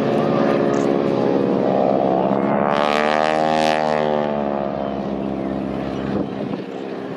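Boeing Stearman biplane's radial engine and propeller droning in flight. The drone is loudest about three to four seconds in, where its pitch swells up and falls back, and then it fades a little.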